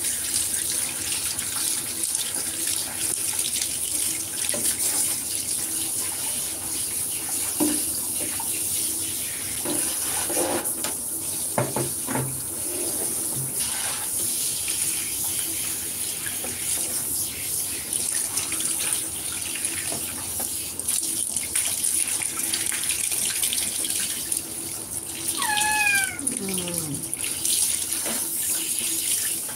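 Handheld shower head spraying steadily into a tub of soapy water while a cat is rinsed, with splashing. Near the end the cat gives one long falling meow.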